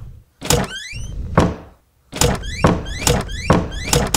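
Cartoon sound effect of a door being tried and rattled by its knob: a few thunks a second apart, then a quicker run of about three knocks a second.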